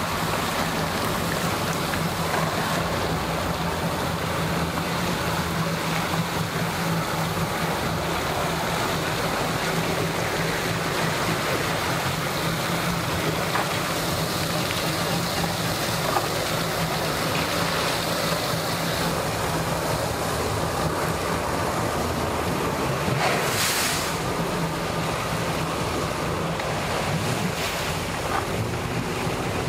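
Boats moving at idle speed, a WaveRunner personal watercraft and outboard-powered boats: a steady low engine hum over churning water. A brief loud rush of noise about three-quarters of the way through.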